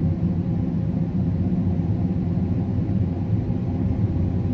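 Combine harvester running at a steady pitch, a low drone heard from inside its cab.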